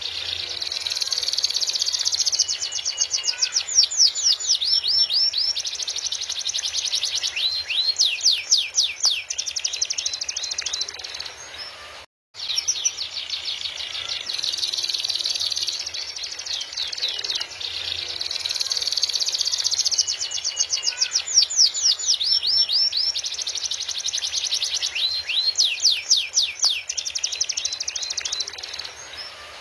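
Domestic canary singing a long, continuous song of fast trills, rolls and chirps, high-pitched. The song breaks off for a moment about twelve seconds in and resumes.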